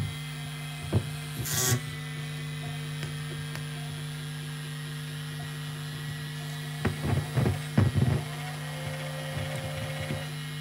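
Circuit-bent VHS video recorder's audio output: a steady electrical hum with a few short crackles and pops about a second in, a brief burst of hiss just after, and a cluster of crackles around seven to eight seconds in, as jumper leads touch points on the circuit board.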